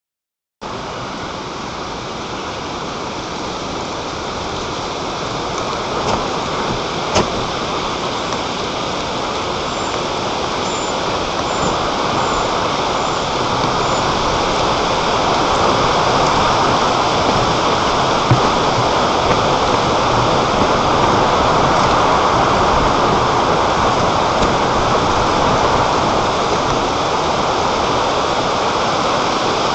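Wind blowing hard across the microphone of a nest camera mounted high in a tree, a steady rushing noise that slowly grows stronger.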